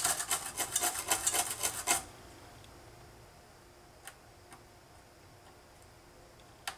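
A non-conductive brush scrubbing a corroded Mac LC II logic board in quick back-and-forth strokes, about six a second. The strokes stop about two seconds in. The owner suspects the corrosion comes from a leaking electrolytic capacitor. A few faint clicks follow, with a sharper one near the end.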